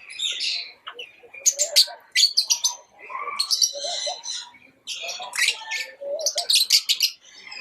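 Pet lovebirds chirping and chattering: rapid clusters of sharp, high-pitched calls with short pauses between them.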